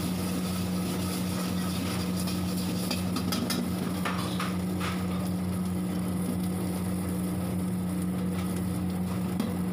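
Steady low machine hum of a commercial kitchen, with a metal ladle scraping and knocking against a steel wok a few times around the middle as vegetables and noodles are stir-fried over a high gas flame.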